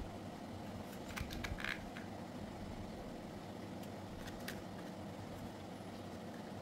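A few small sharp clicks and taps of hair-clipper parts being handled during disassembly, in two brief clusters, over a steady low hum.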